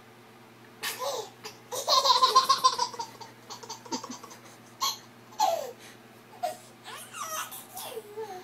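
Baby laughing in repeated bursts, the longest and loudest about two seconds in.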